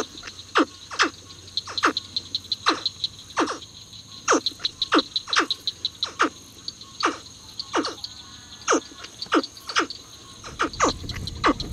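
Night chorus of frogs: short calls that sweep sharply down in pitch, about two a second from several callers, over a steady high pulsing trill.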